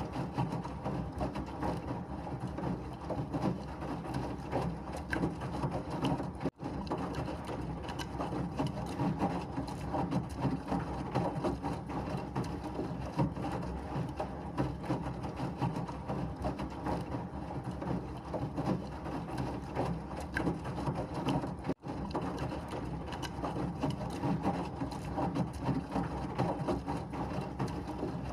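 Washing machine running: a steady, dense mechanical churning with a faint rattle, cut by two very brief dropouts, about six and a half seconds in and again near twenty-two seconds.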